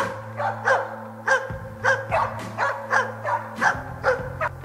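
Moose-hunting dog barking in a steady run of quick, repeated barks, about two to three a second. This is bay barking (ståndskall): the dog holding a bull moose at stand.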